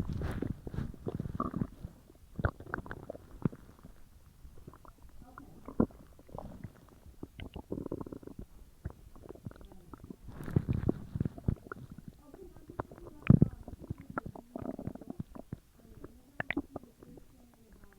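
Human stomach and intestines gurgling and rumbling while digesting a large meal: irregular bursts of squelchy gurgles and short squeaks, with louder bouts right at the start, around the middle and a sharp one a little after.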